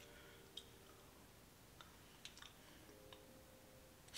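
Near silence broken by about five faint, scattered clicks: a metal fork tapping and scraping in a small ceramic bowl of mashed banana, with quiet chewing.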